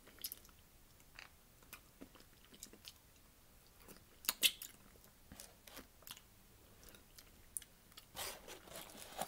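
Close-miked chewing and biting of a sauce-soaked chicken sandwich: scattered wet mouth clicks and smacks, the loudest a few short ones about four and a half seconds in.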